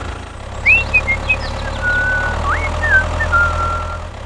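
A steady low motor hum, with a series of short, high, whistle-like tones over it that glide up and down.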